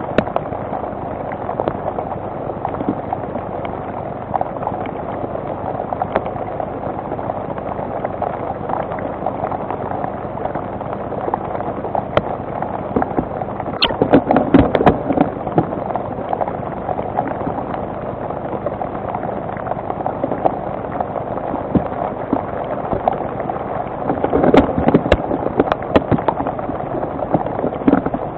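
Steady rain hissing on a webcam's microphone, with two brief clusters of sharp taps and crackles, about halfway through and again near the end.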